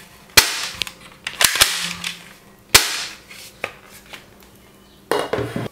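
The plastic bolt action of a toy AWM sniper rifle being worked: a series of sharp plastic clacks, some singly and a quick cluster of three, then a longer rattle of handling near the end.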